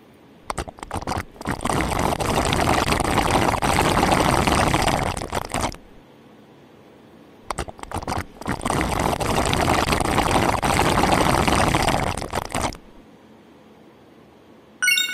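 Spaghetti noodles being slurped loudly in two long slurps, each about five seconds. A short high-pitched beep sounds near the end.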